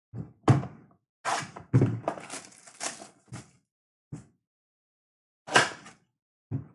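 A cardboard blaster box of football cards being handled in gloved hands: several dull thunks as it is knocked and set down on the table, with a run of cardboard scraping and rustling between them.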